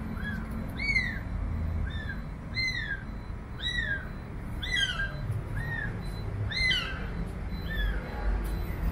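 A week-old kitten crying with repeated short, high-pitched mews, more than one a second, each rising then falling: distress calls of a kitten separated from its mother, calling for her.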